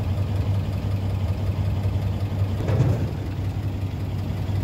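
Mercedes truck diesel engine idling steadily with a low, even drone. A brief louder sound stands out about three seconds in.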